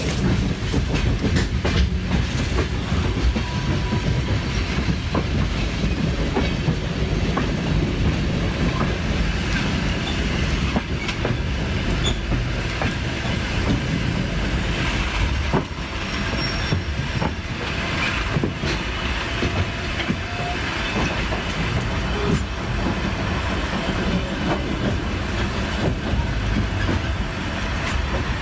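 Railway passenger coaches rolling along yard track, heard from a coach window: a steady rumble of wheels on rail with occasional clicks and knocks over joints and points.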